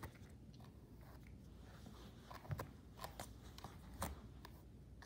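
Faint rustling with a few soft clicks and taps as hands work through a doll's long synthetic hair and pick up a hairbrush.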